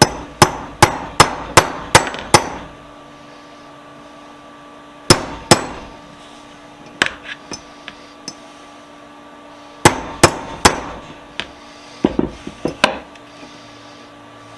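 Hammer blows on a steel vise part, each with a short metallic ring: a quick run of about seven strikes at the start, a pair about five seconds in, a few lighter taps, then another run near ten seconds and more light taps after. The hammering is to work out a bend in the part.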